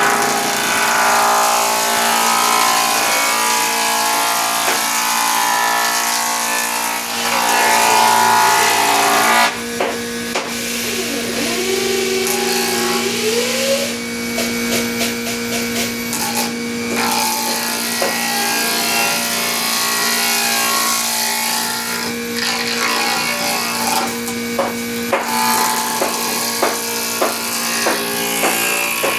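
Electric wood planer running and cutting timber: a steady motor hum throughout, with the cutting noise rising and falling as the board is fed.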